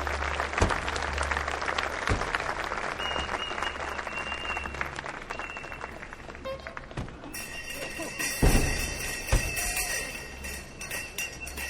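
Clapping and crowd noise, then a sudden bright jingling of bells from about seven seconds in, with a couple of thumps.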